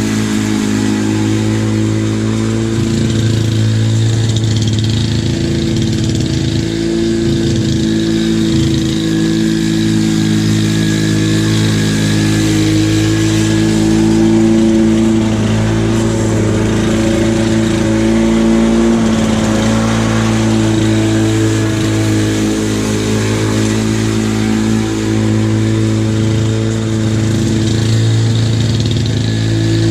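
Two-stroke Lawn-Boy push mower engine running steadily under load while cutting grass into its rear bag, its pitch wavering slightly as the load changes.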